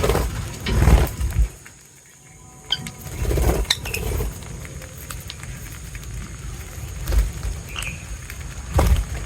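A few short, high bird chirps among low bumps and rustling, as birds feed close to the microphone.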